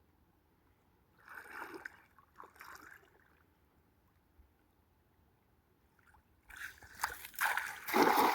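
Water splashing and sloshing: two short splashes a little after a second in, then a louder, longer bout of splashing near the end.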